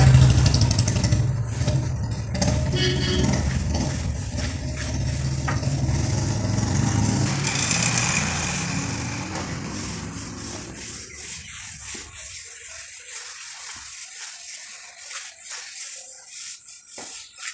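A motor vehicle's engine rumbles and fades away about twelve seconds in. Under it and after it comes the scratchy rubbing of a plastering float worked over fresh cement plaster on a brick column.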